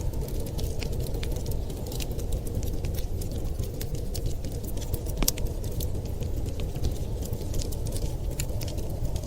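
Wood fire crackling in a fireplace: frequent irregular sharp pops and snaps over a steady low rumble.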